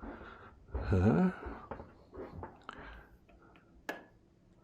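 A man's short voiced utterance about a second in, rising and falling in pitch like a questioning 'huh?'. It is followed by faint rustling and small clicks, and one sharp click near the end.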